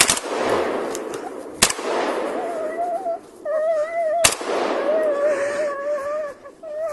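Three close gunshots, one right at the start, one about a second and a half later and one about four seconds in, over the rough noise of a struggle. Through the second half a dog whines in a long, wavering, high cry.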